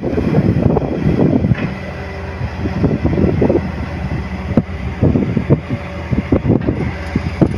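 Crawler excavator's diesel engine running under load as the machine swings and digs into the earth face, with a few sharp knocks in the second half. Wind buffets the microphone throughout.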